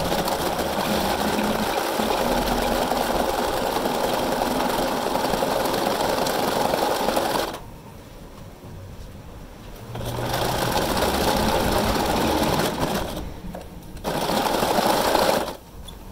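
Bernina sewing machine stitching a zigzag through coiled cotton clothesline rope. It runs steadily for about seven seconds, stops for a couple of seconds, then runs in two shorter spurts with a brief stop between them.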